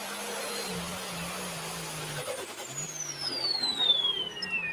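Turbocharged International pulling tractor's engine running under load, its pitch dropping in steps as it slows at the end of the pull, then a high whine falling steadily over the last two seconds as the turbocharger winds down.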